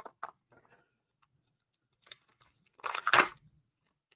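Crinkling and tearing of a trading-card booster pack wrapper being opened by hand: a few faint rustles in the first second, then two crackly bursts about two and three seconds in, the second the louder.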